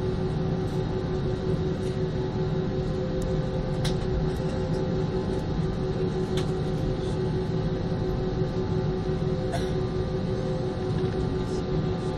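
Airliner cabin noise with the jet engines running: a steady rumble and hiss with a constant whine of a few held tones. Faint clicks stand out three times.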